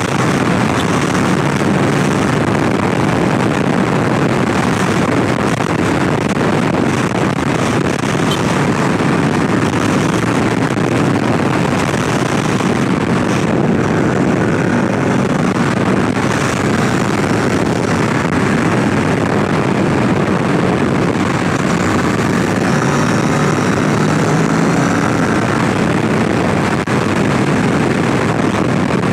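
Kawasaki Ninja 650 ridden at a steady cruise, its parallel-twin engine running under a constant rush of wind on the helmet-mounted microphone.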